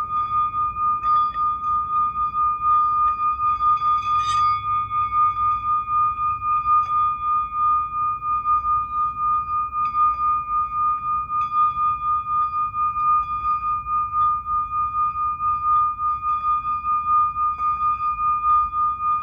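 Singing bowl being rimmed, holding one sustained high ringing tone that swells and fades about twice a second. A brief click sounds about four seconds in.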